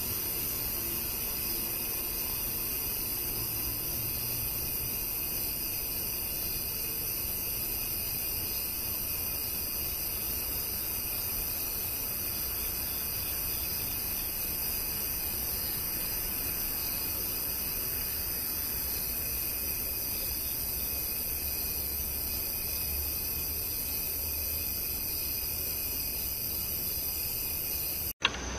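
Steady high-pitched hiss with a faint low rumble underneath, broken by a sharp click near the end where the sound changes.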